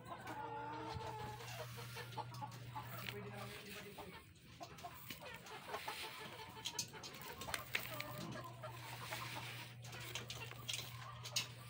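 Chickens clucking, with a low steady hum that stops about three and a half seconds in and comes back near eight seconds.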